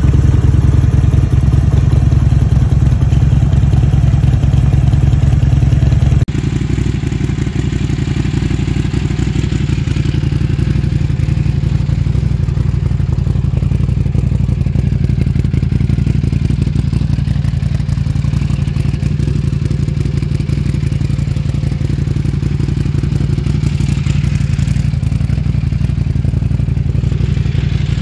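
A Buell XB9's air-cooled V-twin idling with a steady low rumble. About six seconds in it gives way to a 2009 Buell 1125CR's liquid-cooled Rotax V-twin, idling steadily and a little quieter.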